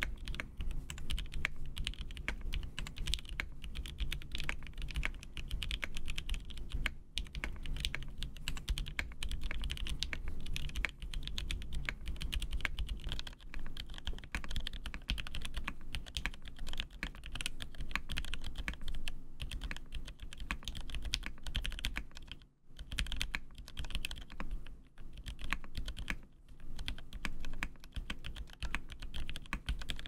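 Continuous fast typing on a Mode SixtyFive custom mechanical keyboard, with a brief pause about two-thirds of the way through. The board has a polycarbonate case, an FR4 half plate, and JWK Lavender switches and stabilisers lubed with 205g0. It is heard first in isolated top mount and then in stack mount.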